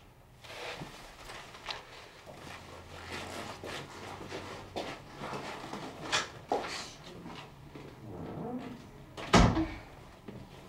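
Soft footsteps and fabric rustling, then a room door shutting with a single loud thump about nine seconds in.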